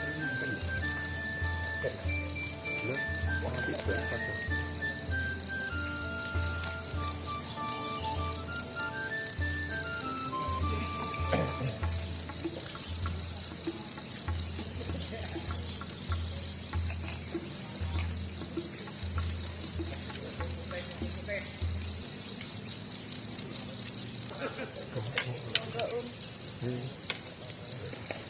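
A loud, high-pitched insect chorus trilling steadily throughout. Background music plays under it: a melody in the first half and a low beat that stops about three quarters of the way through.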